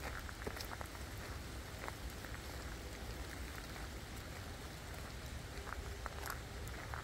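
Steady rain falling in a forest, with scattered single drops tapping close by.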